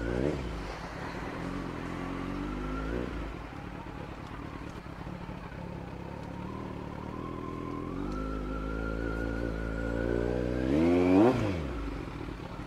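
Kawasaki Z900's inline-four engine running at low revs as the bike rolls slowly. The engine note climbs steadily over the last few seconds and peaks in a short, quick blip of the throttle near the end.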